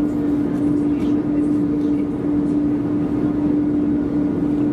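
Steady drone inside an Airbus A330-200 passenger cabin: one constant low hum over an even rush of noise, with no change in level.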